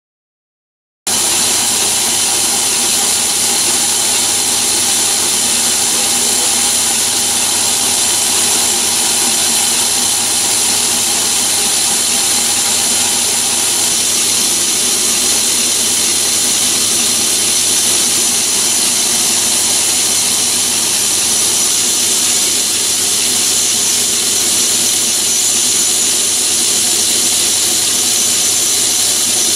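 Metal-turning lathe running steadily with its chuck spinning, a continuous machine sound with a steady high tone over it. It starts suddenly about a second in.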